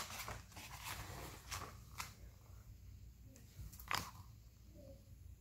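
A picture book's paper pages being turned and handled: soft rustling with a few sharp crackles, the loudest about four seconds in.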